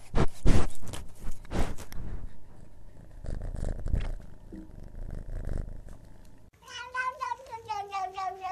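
A quick series of loud scratchy taps right at a small microphone during the first two seconds. Then, about two-thirds of the way in, a tabby cat's long, wavering meow that slowly falls in pitch.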